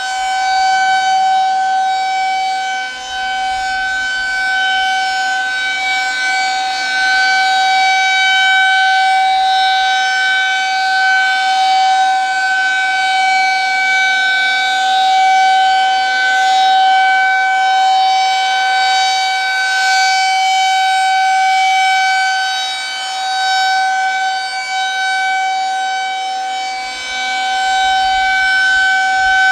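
Federal Signal 2001-SRNB outdoor warning siren sounding a steady, unchanging tone during a siren test, its loudness swelling and dipping slightly.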